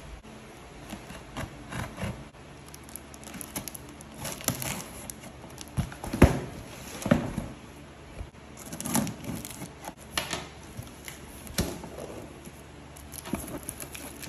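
Packing tape on a cardboard shipping box being cut and the box handled: on-and-off scratching, tearing and crinkling with a few sharp knocks, the loudest about six seconds in.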